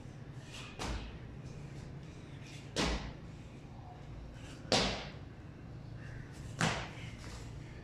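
A child jumping up concrete stairs with both feet together: four landings about two seconds apart, each with a short echo in the stairwell.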